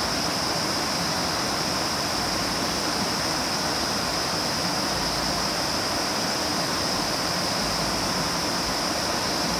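A steady, even rushing noise with a constant high-pitched whine running through it, at an unchanging level.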